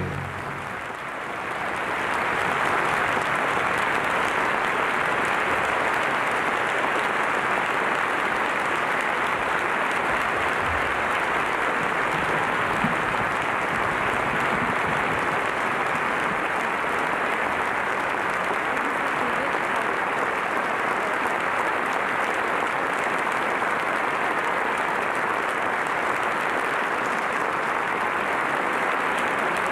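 A large audience applauding steadily, swelling up over the first couple of seconds and then holding level.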